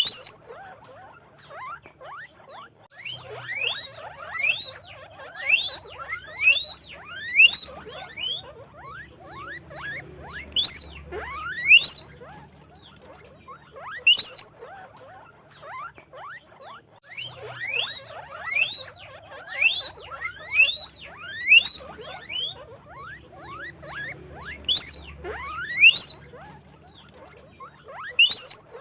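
Guinea pigs wheeking: loud, high whistling squeaks that rise and fall, repeated about once a second in two runs of about ten calls each, with fainter squeaks and chatter between the runs.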